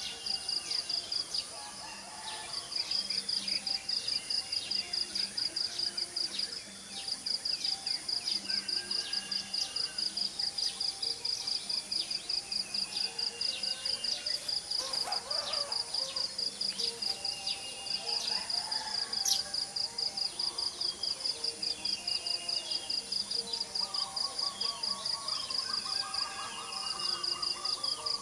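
An insect, likely a cricket, chirping in a steady high-pitched pulse several times a second, pausing briefly a few times. Scattered short bird chirps sound over it, with a warbling bird call near the end.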